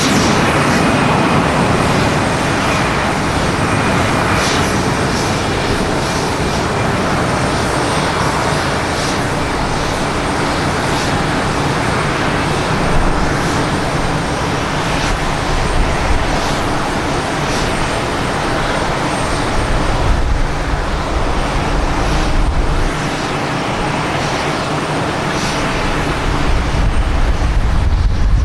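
Jet engines of a Boeing 787-9 airliner, Rolls-Royce Trent 1000 turbofans, running as a steady loud rush, with a deeper rumble swelling near the end.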